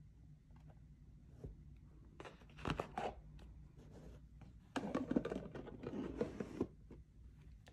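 Hands handling cardboard jewelry boxes: the lid slides off the outer box and the inner presentation box is lifted out and set down, with two spells of scraping, rustling card and light knocks, about two seconds in and again about five seconds in.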